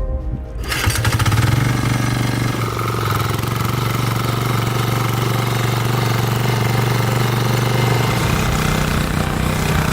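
Small diesel engine of a 5.5 hp walk-behind tiller, running steadily. It cuts in within the first second, and its low note shifts a little about eight seconds in.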